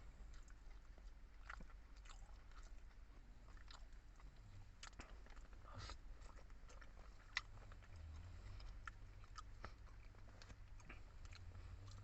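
A person chewing and biting food, with soft mouth noises and scattered small clicks; one sharper click a little past the middle.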